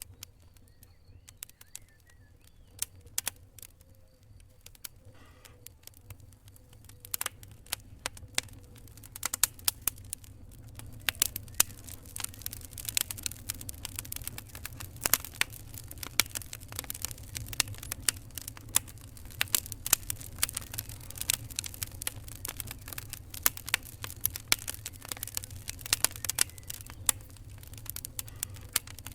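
Fire crackling: scattered sharp pops and snaps, sparse at first and coming thick and fast from about a third of the way in, over a low steady rumble.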